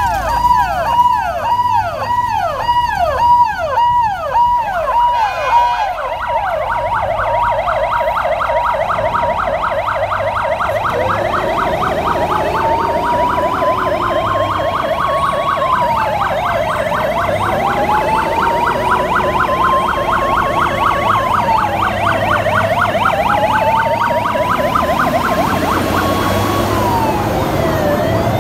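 Several fire service vehicle sirens sounding together: a fast repeating yelp for the first few seconds, then a rapid warble, joined partway through by a slow wail that rises and falls every five seconds or so.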